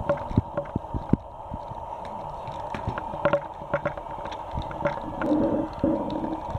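Scissors snipping through a plastic shipping mailer and the foil-like plastic crinkling, heard as irregular sharp snips and crackles, with a brief pitched sound about five seconds in, over a steady faint hum.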